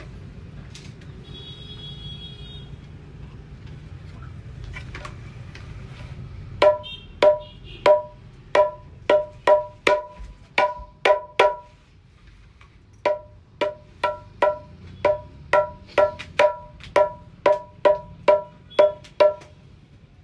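Dholak struck to check its sound: single ringing strokes on a tuned head, about two a second, in two runs with a short break between them. A low background rumble fills the first six seconds or so before the strokes begin.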